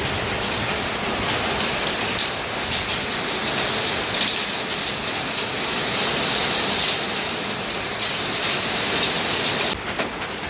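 Hailstones and heavy rain falling together, a dense, steady clatter of many small hits over the hiss of the downpour. Near the end the sound drops and thins out abruptly.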